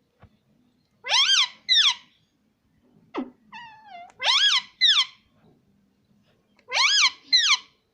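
A parrot repeating the same high-pitched two-syllable call three times, each pair a rising-and-falling note followed by a shorter falling one. Between the first and second pairs there is a quick downward squeak and a brief falling whistle.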